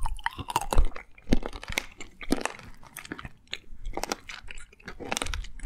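Crunchy candy being bitten and chewed close to the microphone: irregular crisp cracks, several a second.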